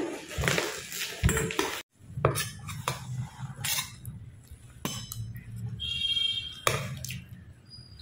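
Steel spoon scraping and clinking against a stainless steel bowl of poha, a few separate sharp clinks, one of them leaving a brief ringing tone from the bowl a little past the middle.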